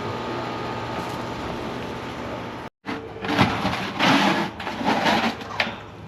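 A steady mechanical hum. After a sudden cut, it gives way to about three seconds of loud, irregular scraping, rattling and knocking, like metal and equipment being handled.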